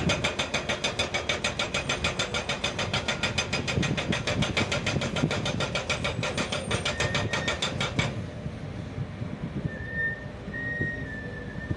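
Heavy earth-moving machine engine running with a regular knocking about five times a second; after a sudden cut about eight seconds in, the sound drops to a quieter engine hum with a faint high whine.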